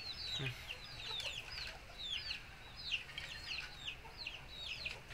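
Chicks peeping: many short, high chirps that fall in pitch, coming several a second in quick clusters.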